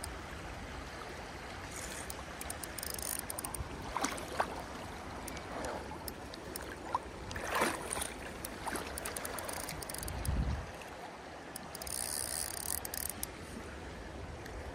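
River water running and lapping close to the microphone, with spells of fast ratcheting clicks from a spinning reel, near the start and again near the end, as a trout is played on the line.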